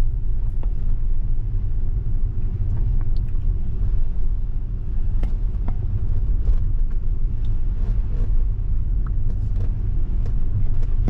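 Steady low road rumble of a Tesla driving slowly on a wet road, heard inside the cabin, with scattered light ticks throughout.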